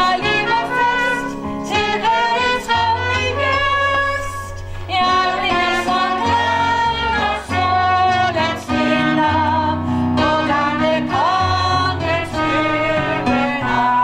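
A woman singing with vibrato into a microphone, accompanied by piano.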